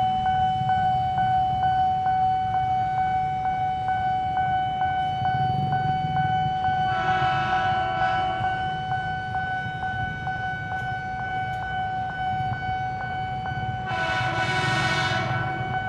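Commuter electric train sounding its horn in two blasts of about a second and a half each, several seconds apart, over a steady rumble. A continuous high tone with a faint tick about twice a second runs underneath.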